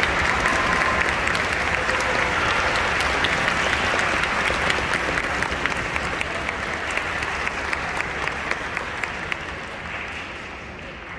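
Audience applauding in a theatre, dense clapping that slowly dies away toward the end.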